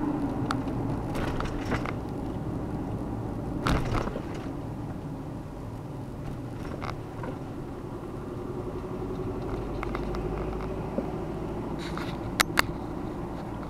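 Car driving on a mountain road, its engine running steadily. A few sharp knocks sound, one about four seconds in and two close together near the end.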